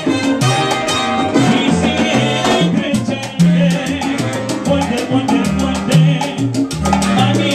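Live salsa orchestra playing: trumpets and trombone over timbales and other percussion, with low bass notes stepping in pitch underneath.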